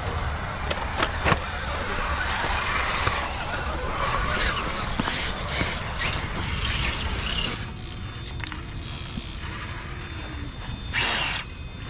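Radio-controlled rock crawler working over rocks: a high whine from its electric motor and gears, with sharp clicks and knocks of the truck against stone.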